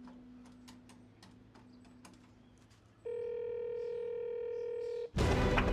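Payphone in use: faint scattered clicks, then about three seconds in a steady electronic telephone tone that holds for about two seconds and cuts off abruptly. Near the end a sudden louder sound starts.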